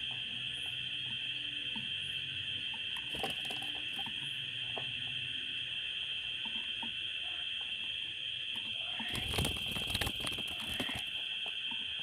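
Pied bushchat's wings beating in a short flurry of flaps and scuffles about nine seconds in, as the bird flies off its perch in a plastic basket cage. A steady high-pitched hum runs underneath, with faint light ticks.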